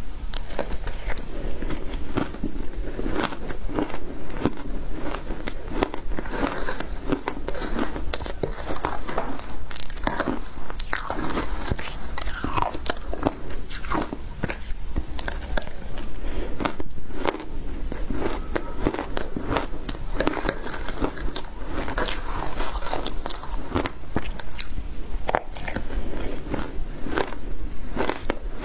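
Shaved ice being bitten and chewed up close: a dense, unbroken run of sharp crunching snaps.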